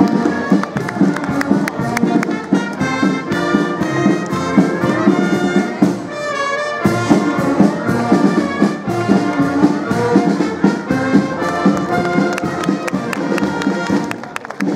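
Municipal philharmonic brass band playing live with a regular beat, trumpets and trombones carrying the tune.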